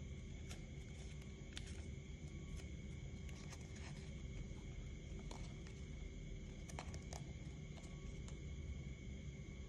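Soft paper crinkles and light clicks as sheets of folding paper are creased and shaped by hand, over a steady low background hum with faint steady high-pitched tones.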